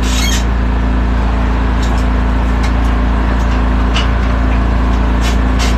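Portable generator running steadily with a low hum, while a few short clicks come from tire work.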